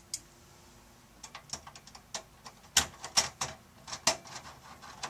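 A Phillips screwdriver driving a screw into a desktop PC's sheet-metal case at the expansion-slot bracket: a string of small irregular metallic clicks and taps that starts about a second in, with a few louder clicks past the middle.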